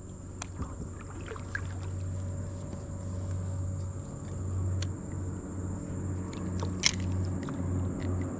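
Baitcasting reel being cranked to retrieve a topwater lure: a low gear whirr that pulses about twice a second, with small clicks and handling knocks.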